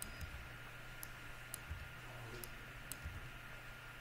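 Sparse single clicks of a computer keyboard and mouse, about five, irregularly spaced, over a faint steady background hum.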